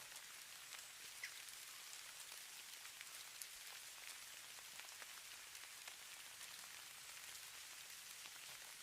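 Faint, steady hiss of falling snow, with scattered light ticks of flakes or ice pellets landing.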